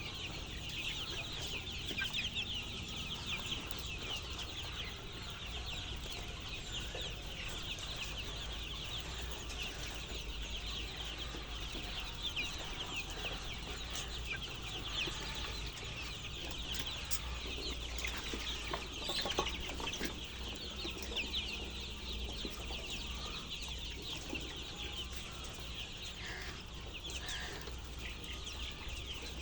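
A large flock of chickens calling together, with many short high calls and clucks overlapping without a break, over a steady low hum.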